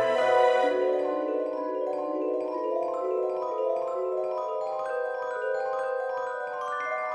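Background music played on mallet instruments: a gentle vibraphone or marimba-like melody of sustained, ringing notes.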